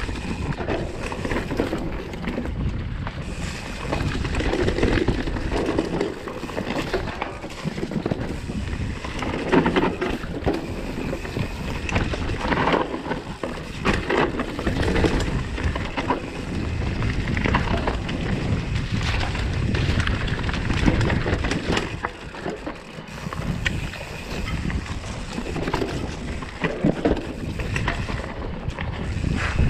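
Mountain bike ridden along a dirt singletrack: tyres rolling and crunching over the trail, with frequent short knocks and rattles from the bike over bumps, and wind buffeting the microphone.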